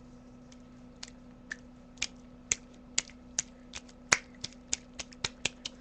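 A series of sharp clicks or pops, irregular at first and coming more often, about two to three a second by the end.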